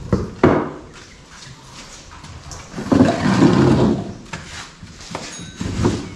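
Wooden benches being handled and set down on a concrete floor: a knock, then about three seconds in a longer scraping sound lasting about a second, then a few more knocks near the end.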